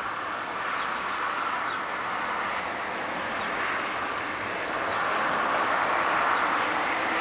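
Gusty outflow wind ahead of a severe thunderstorm rushing steadily through trees, swelling louder about five seconds in.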